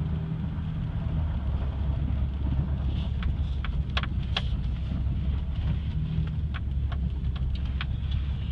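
Steady low rumble of a 2004 Toyota Tacoma's 3.4-litre V6 and drivetrain under way, heard from inside the cab, with a scattering of short sharp clicks in the middle. The truck has a grinding noise that the owner hears whenever he drives it, loudest when cold.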